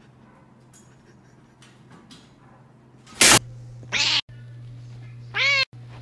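Domestic cats meowing. A little past halfway come two short, very loud, harsh yowls from a kitten with its mouth wide open, then near the end a longer meow that rises and falls. Before that there are only faint light clicks.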